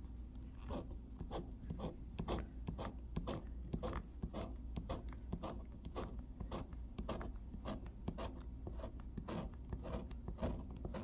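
Scratch-off lottery ticket being scratched, a steady run of short, rasping scrapes at about two or three strokes a second as the latex coating is rubbed off.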